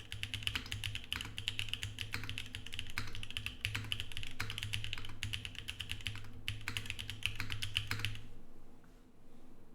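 Fast continuous typing on an Emery 65 mechanical keyboard, with lubed JWK Prevail Nebula linear switches on an XPC plate and GMK keycaps. The key presses make dense, quick clicks that stop about eight seconds in.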